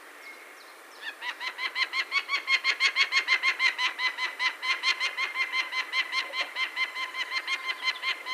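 Peregrine falcon giving its cacking call: a long, rapid run of short, even, pitched notes, about six a second, starting about a second in.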